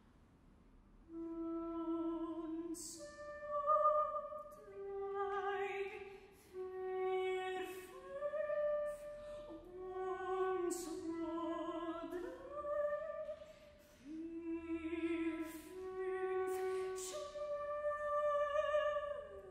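Solo soprano voice singing slow, long-held notes of a contemporary classical art song, sliding between some pitches, with sung consonants audible between the notes. It begins after about a second of quiet.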